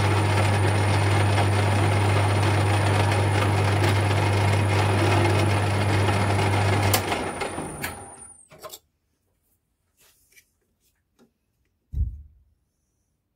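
Metal lathe running, its tool turning down aluminium stock, with a steady motor hum under the cutting noise. About seven seconds in, the motor is switched off and the chuck spins down to a stop over a second or so. A few faint clicks follow, then a single knock near the end.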